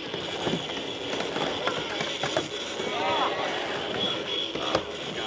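Spectators talking and calling out around a skateboard miniramp, mixed with several sharp clacks of a skateboard landing and hitting the ramp.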